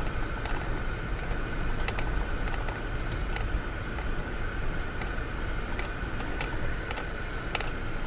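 Vehicle driving slowly over a rough dirt track: a steady engine and tyre rumble with a thin steady whine and scattered sharp knocks and rattles from the bumps.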